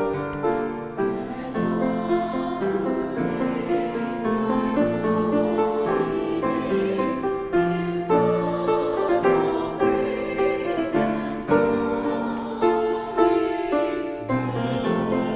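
A mixed church choir singing an anthem in parts, accompanied by piano.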